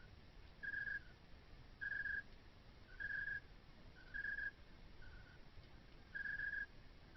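A repeated chirping call: short, steady-pitched chirps about once a second, some followed by a slightly lower, fainter note, over a faint low hum.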